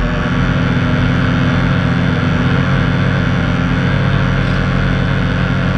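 The RC boat's twin brushed electric motors running steadily under throttle, heard from a camera on the hull. The motor tone holds one pitch, mixed with the rush of water.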